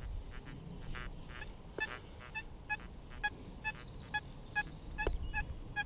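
XP Deus metal detector giving short repeated beeps, about two or three a second, as its search coil sweeps back and forth over a target reading in the early 90s among iron. There is a lot of buzzing around the signal from the surrounding iron.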